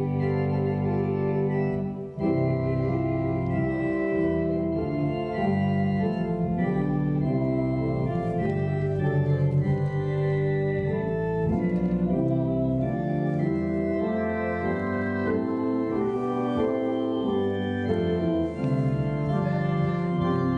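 Organ playing a hymn in held chords that change about once a second, with a short break between phrases about two seconds in.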